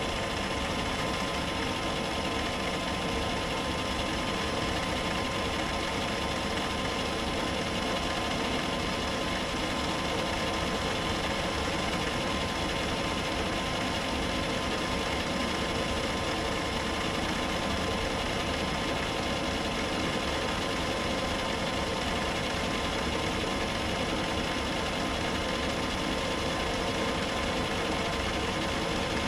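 Metal lathe running steadily while a pulley is turned to true it up.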